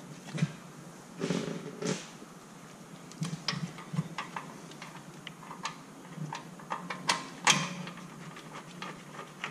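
Metal clicks and knocks as a new rear hub bearing assembly is wiggled against the knuckle while a mounting bolt is fed in from behind to catch its threads. The sharpest clack comes about seven and a half seconds in.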